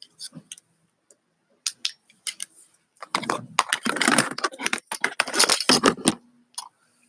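Clinking and rattling handling noise: scattered sharp clicks, then about three seconds of dense jangling clatter, followed by a faint steady hum.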